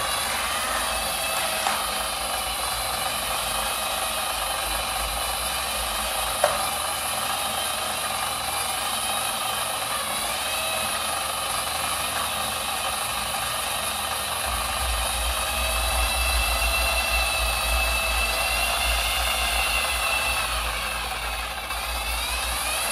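Motorized treadmill running steadily, its motor whining over the hiss of the moving belt. A couple of clicks come in the first seven seconds, and a deeper hum grows stronger about two thirds of the way through.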